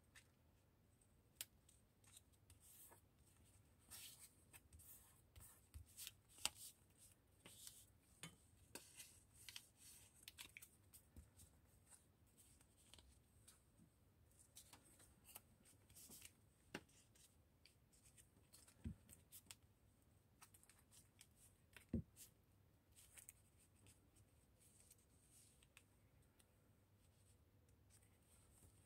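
Faint handling of paper scraps and card tags: scattered rustles and small taps, with a couple of sharper knocks, one about six seconds in and one about twenty-two seconds in.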